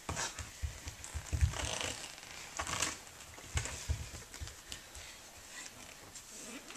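Dancers' bare feet thudding and brushing on a studio floor in an irregular pattern, with a little room echo.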